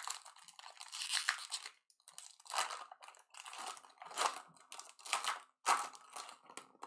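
Foil wrapper of a Bowman Draft baseball card jumbo pack crinkling and tearing as it is pulled open by hand, in a string of short, irregular crackly bursts.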